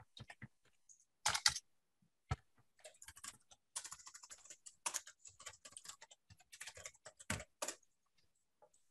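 Typing on a computer keyboard: a few scattered keystrokes, then a quick run of keystrokes that stops about a second before the end.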